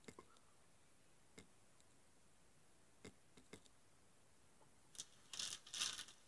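Near silence with a few faint single clicks, then a short cluster of hissy, scratchy bursts about five seconds in.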